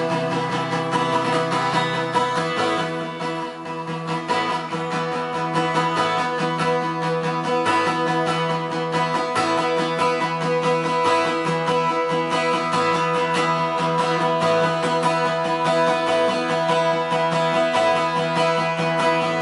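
Background music: acoustic guitar playing a steady run of plucked notes.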